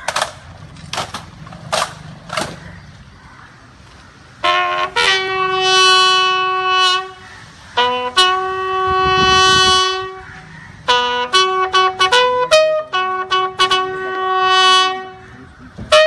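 Four sharp knocks in the first few seconds. Then, from about four and a half seconds in, a bugle sounds a slow ceremonial call: long held notes broken by quick short ones.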